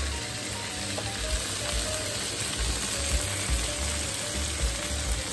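Fish fillet pieces with green bell pepper and onion frying in oil in a wok over a gas flame, with a steady sizzle.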